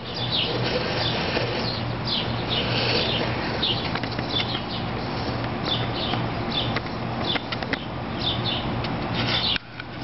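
Small birds chirping repeatedly, short falling high-pitched notes about once or twice a second, over a steady background hiss and a low hum, with a few light clicks. The sound drops out briefly near the end.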